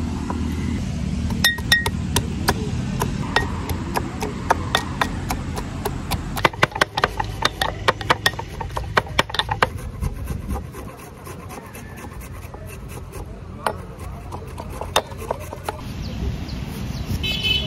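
Garlic being pounded: a run of sharp, irregular knocks that come thick and fast in the middle, then thin out to occasional strikes.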